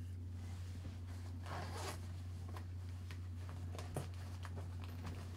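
Rustling and small clicks of camera gear being handled and put aside, with one short rustle about one and a half seconds in and a sharper click near four seconds. A steady low hum runs underneath.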